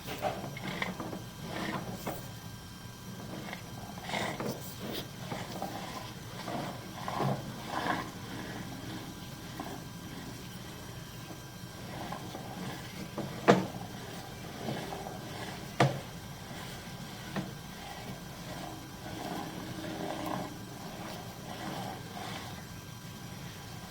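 Plumbing equipment working a sewer line: a steady low machine hum with intermittent clattering and rattling, and two sharp knocks a couple of seconds apart about halfway through.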